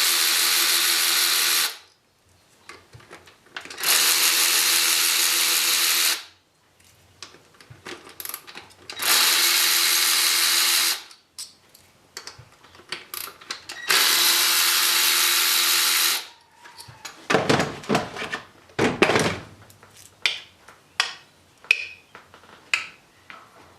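A power driver with a 10 mm socket spinning out the ignition-coil bolts on a Nissan Qashqai J10 engine, four steady runs of about two seconds each with pauses between. Near the end come a series of sharp clicks and knocks as parts are handled.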